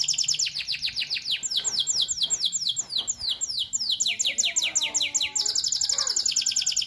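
Domestic canary singing a continuous song of rapid trills, each note a quick downward sweep. The trill slows and drops lower in the middle, then speeds up again near the end.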